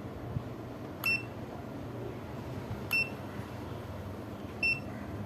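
Aneng 681 digital multimeter beeping: three short, high beeps about two seconds apart over a low steady background hum.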